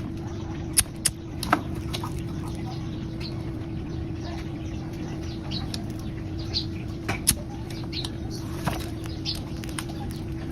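Pigeons handled or shifting about: a few sharp clicks and brief wing flutters with small high peeps, over a steady background hum.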